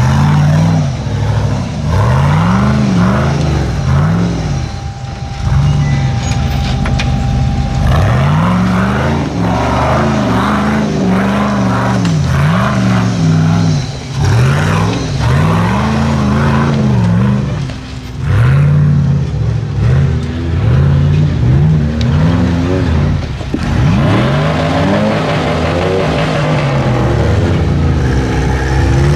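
Rock buggy engine revving up and down in quick repeated blips as it crawls up a steep rock slope, the pitch rising and falling again and again without a break.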